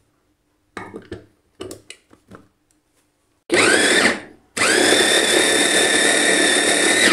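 Khind electric mini food chopper: a few light clicks and knocks as the motor head is seated on the glass bowl, then the motor whirs up with a rising whine in a short pulse, stops, and starts again for a long steady run. It is chopping onion, garlic and chillies coarsely.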